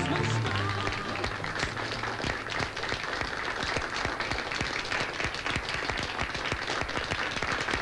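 Audience clapping in applause as a band's song ends. The band's last held note dies away at the very start.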